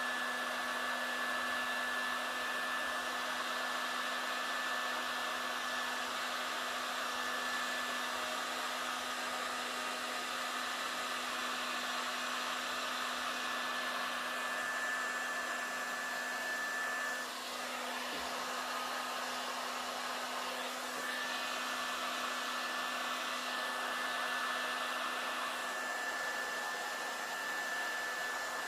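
Electric heat gun running steadily, blowing hot air over wet epoxy resin to spread the white wave edge into cells. A steady blower noise with a constant whine, dipping briefly a little past halfway as the gun is moved.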